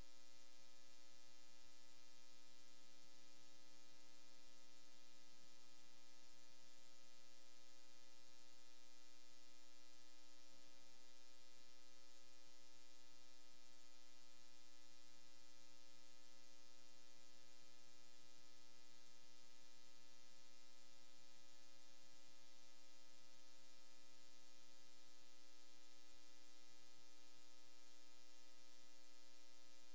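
Low, steady electrical hum with a hiss over it, unchanging throughout; no speech or music.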